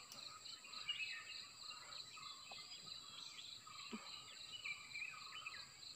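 Faint forest ambience: a steady high drone of insects with scattered short bird chirps.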